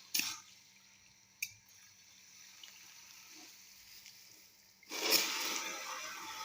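Two sharp knocks, then about five seconds in water starts running with a steady hiss.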